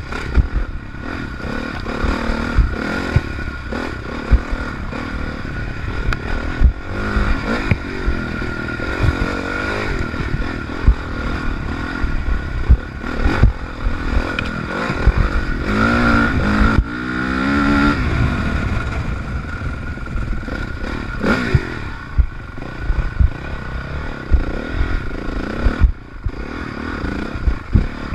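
Honda CRF450R single-cylinder four-stroke engine revving up and down as the dirt bike is ridden hard over rough trail, with frequent knocks and rattles from the bike hitting bumps.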